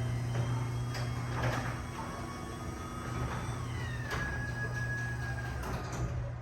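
Chamberlain belt-drive garage door opener running a door on its track, with a steady motor hum and a few faint clicks and rattles. A higher whine drops in pitch about three seconds in, then holds steady until near the end.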